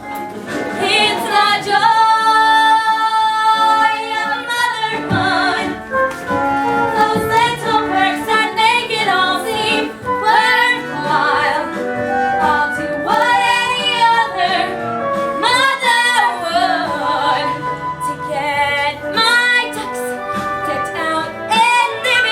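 Female voices singing a musical-theatre show tune over instrumental accompaniment, with held notes sung with vibrato.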